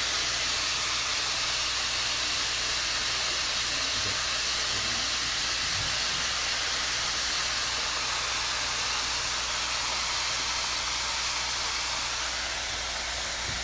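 Battered oysters deep-frying in 350 °F canola oil, a steady sizzling hiss; they are floating, the sign they are done.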